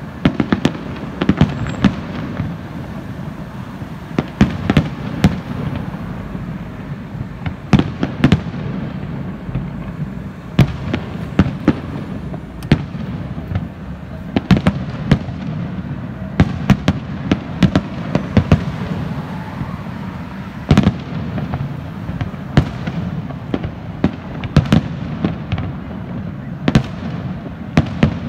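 Aerial fireworks display: an irregular series of sharp bangs from shells bursting, some coming in quick clusters of two or three, over a steady low rumble.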